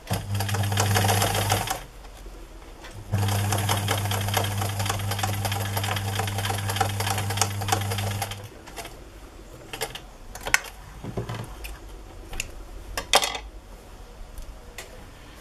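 Electric sewing machine stitching a narrow seam through layered fabric. It makes a short run of about a second and a half, pauses, then makes a steady run of about five seconds. A few light clicks follow after it stops.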